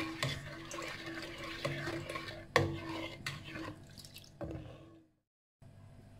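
Ladle stirring thin coconut milk in a pot: the liquid sloshes and the ladle clicks and knocks against the pot, with one sharp knock about two and a half seconds in. The stirring fades away near the end.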